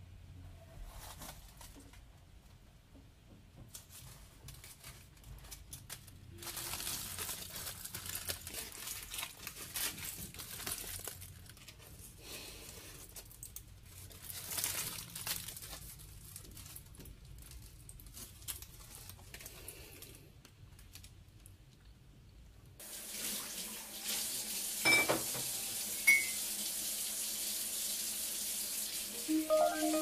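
Kitchen tap running into a sink: a steady hiss of water that starts suddenly about three-quarters of the way through, with a couple of clinks soon after. Before it, only quieter, intermittent rustling.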